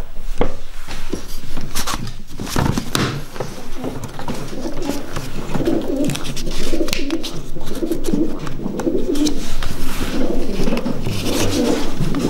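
Racing pigeons cooing in the loft, a low throbbing run of coos that builds from a few seconds in and goes on steadily. Over it, clicks and rustles of a paper pedigree sheet being handled.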